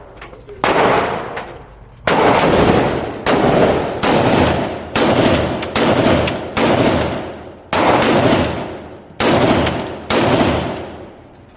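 AR-10 rifle fired shot after shot, about ten sharp, loud reports roughly a second apart, each followed by a long echoing decay.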